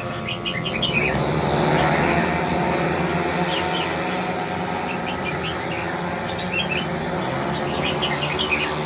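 Race car engines running, one rising in pitch about a second in, with birds chirping in short clusters throughout.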